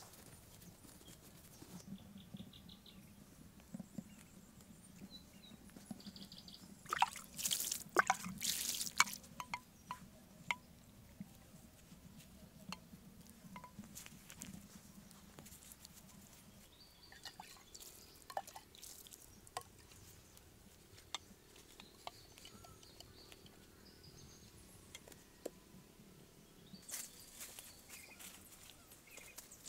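Water and wet soil being worked by hand around seedlings in a planting hole: small drips, splashes and soft taps, with a louder run of splashing about seven to nine seconds in.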